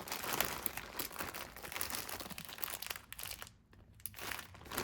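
Plastic packaging bags crinkling and rustling as they are handled, with a brief lull a little past the middle.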